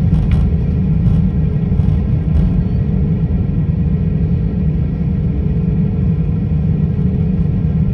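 Jet airliner cabin noise while taxiing: a steady low rumble from the engines and rolling landing gear, with a steady hum over it. A couple of faint clicks right at the start.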